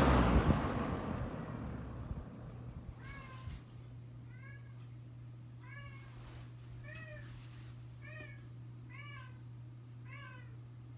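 A 1977 Kmart K-223 20-inch box fan with a McMillan motor coasting down after being switched off, its air rush fading away over about two seconds. Then a cat meows repeatedly, about once a second, over a steady low hum.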